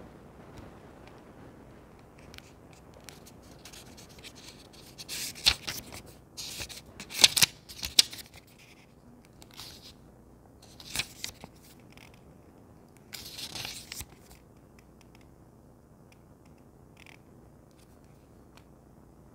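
Close handling noises of small objects: several short bursts of scratching and rubbing with a few sharp clicks, the loudest a little past the middle.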